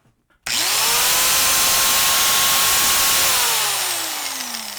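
Warrior angle grinder, freshly reassembled after a repair, run with no disc and no load. It is switched on about half a second in, spins up at once to a steady high whine, then is switched off and winds down with a falling pitch. It runs quietly and does not rattle.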